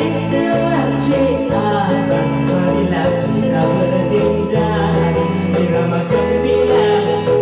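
Karaoke backing track playing with a steady beat and bass line, with a man singing along into a corded microphone.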